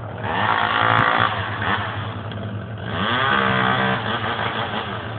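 An engine revs up twice, each time for about a second, over a steady low engine idle.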